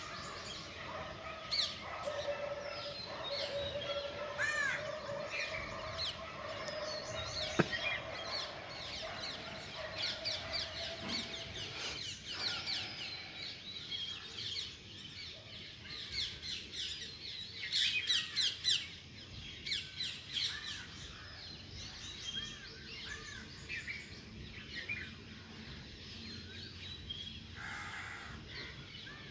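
Many birds chirping and twittering together in a morning chorus: a dense run of quick high chirps. Under the chirps a steady hum runs from about two seconds in to about twelve seconds in, and a single sharp click comes at about seven and a half seconds.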